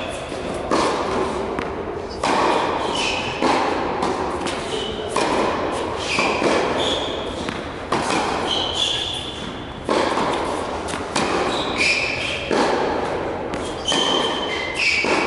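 Tennis ball struck by a racket and bouncing on an indoor court, a sharp pop a little over a second apart, echoing in the hall, with short high squeaks of tennis shoes on the court surface between hits.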